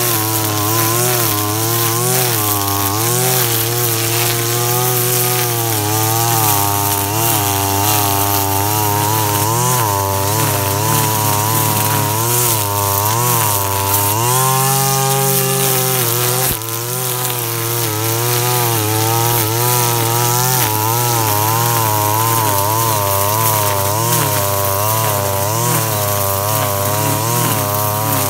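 KAAZ URP260AL 25cc brush cutter running at working speed while cutting grass, its engine pitch wavering up and down about once a second as the load changes. There is a brief drop in level a little past halfway.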